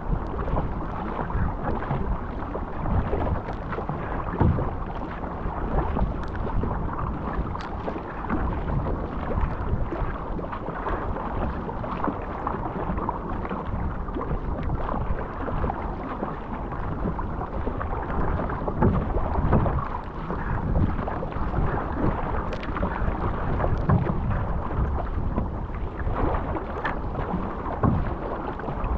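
Think Six surfski running through choppy sea: a steady rush of water along the hull with a low rumble, broken by irregular splashes as paddle strokes and waves hit.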